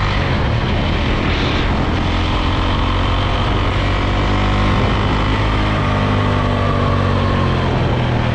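Loncin LX300 enduro motorcycle's 292 cc single-cylinder engine running under way, its note climbing gently and easing back off near the end.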